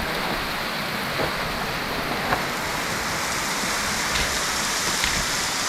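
Steady rushing of a waterfall, with a few faint knocks over it; the rush grows brighter about halfway through.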